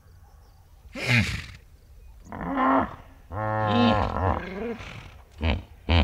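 Hippopotamus calling: a series of deep honking grunts, the longest lasting over a second in the middle and a short last one near the end.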